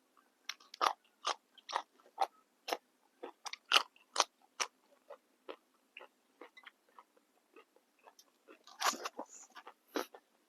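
A person biting and chewing crisp fresh vegetables close to the microphone: irregular sharp crunches, a few a second, with a louder run of crunching near the end.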